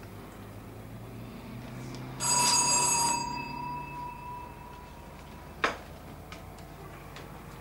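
Electric doorbell ringing for about a second, one of its tones fading away over the next two seconds. A single sharp click follows a couple of seconds later.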